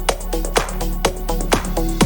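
Electronic dance background music with a steady beat, about two beats a second.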